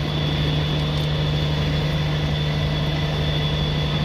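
Steady low mechanical hum with a thin, high, steady whine above it.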